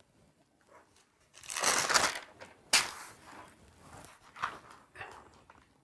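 Stiff pages of a large photo album being handled and turned, their tissue-paper interleaf crinkling and rustling, with a sharp snap a little under three seconds in and softer rustles after it.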